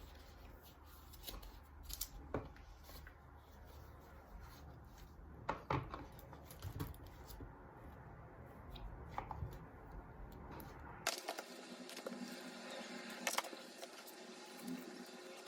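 Small clicks and knocks of objects being handled, irregular and sparse, over quiet room tone that changes character about eleven seconds in.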